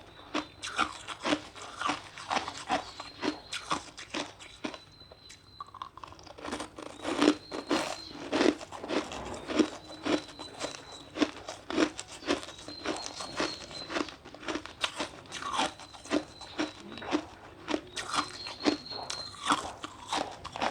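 Ice being bitten and chewed, a dense run of sharp, irregular crunches. A faint high thin note recurs every couple of seconds behind it.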